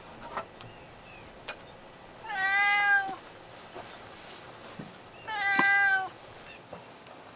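A cat meowing twice, two long drawn-out calls about three seconds apart, with a few faint clicks around them.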